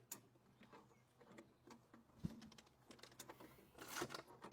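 Faint, scattered metallic clicks and knocks of a pry bar working a long-seized bulldozer engine over by hand, with one dull thump about two seconds in.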